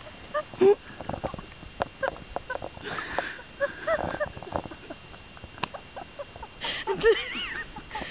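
A series of short animal calls, some arching up and down in pitch, most of them about three to four seconds in and again about seven seconds in, with scattered clicks between.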